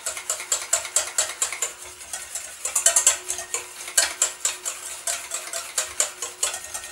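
Wire whisk clinking against the sides of a stainless steel bowl in a quick, steady rhythm, beating egg and mustard while a thin stream of oil is trickled in to mount a mayonnaise-style emulsion.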